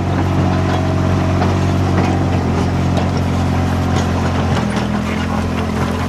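Kubota RTV-X1140 utility vehicle's diesel engine running steadily, its note shifting a little about two-thirds of the way in.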